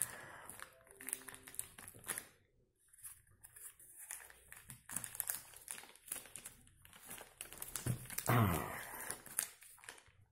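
Grey plastic postal mailer crinkling and rustling in short, scattered bursts as one hand fumbles at it, trying to get it open. There is a louder noise about eight seconds in.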